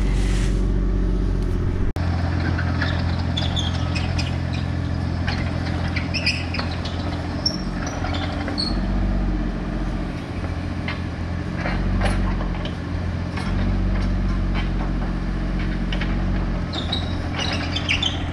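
A heavy engine runs steadily, its pitch shifting slightly now and then, with scattered short squeaks and clicks over it. The sound drops out for a moment about two seconds in.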